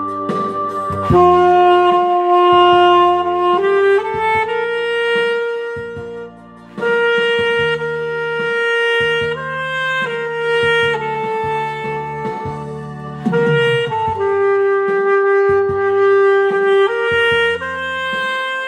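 Instrumental music: a saxophone-like wind instrument plays a slow melody of long held notes over a backing track with bass.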